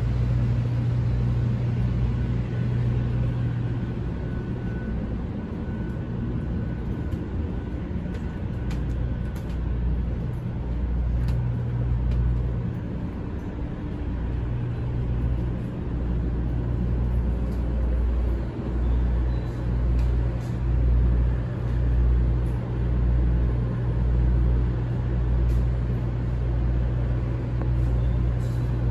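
Steady low hum and rumble inside a 500 Series Shinkansen passenger car. From about halfway through, soft low thuds come roughly once a second.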